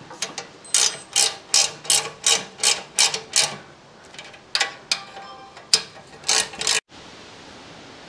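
Motorcycle front tire rubbing and scraping as it is rocked back and forth to squeeze the wheel into the forks. A quick run of strokes, about three a second, then a few more, cutting off abruptly near the end.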